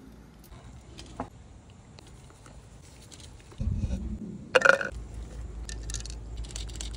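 Food-prep handling sounds: a sharp knock as a plastic blender cup is set down on a wooden cutting board, then faint ticks of pine nuts dropping into the cup.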